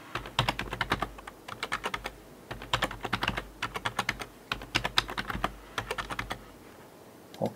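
Computer keyboard being typed on: quick runs of key clicks with short breaks between them, stopping about a second before the end.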